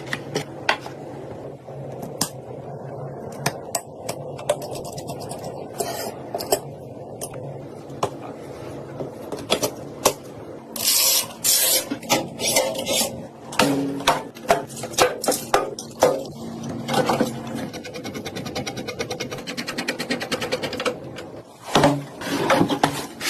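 Clicks, knocks and scrapes of computer parts being handled and fitted during a PC build, over a steady low hum. In the last third comes a fast, even run of ticks.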